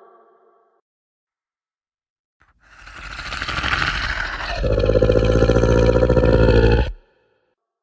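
Monster roar sound effect: a raspy, breathy growl builds up, then about two seconds later turns into a deep, loud roar that cuts off abruptly.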